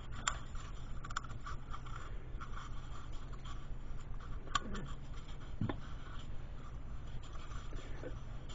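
Faint rubbing and scratching with a few small clicks: greasy hands handling the plastic cartridge oil filter cap and fitting its new rubber gasket. A steady low hum runs underneath.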